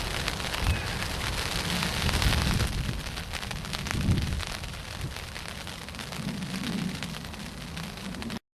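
Wind buffeting the microphone: a steady hiss with gusty low rumbling, cutting off abruptly near the end.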